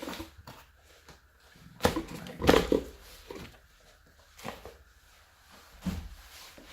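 Shoe box and the white wrapping paper around new shoes being handled: scattered rustles and light knocks, the loudest about two and a half seconds in.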